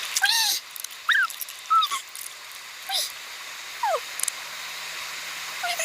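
Short mewing animal calls, about six, each a quick rise and fall in pitch, over a steady hiss.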